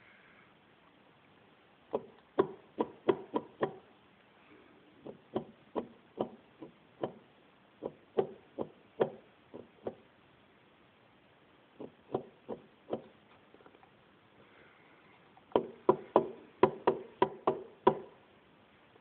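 Lancia Y10 gearbox differential being rocked with a metal bar inside its casing, giving runs of sharp metallic knocks, several a second, with pauses between. The knocking is the differential carrier moving in badly worn differential bearings.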